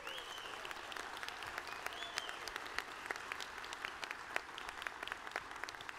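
Audience applause: many hands clapping at once in a dense, irregular patter.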